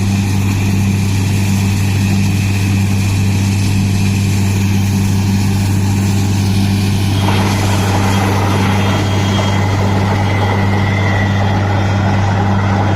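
Borewell drilling rig's engine running with a steady, loud low drone. About seven seconds in, a louder hissing noise joins over it and carries on.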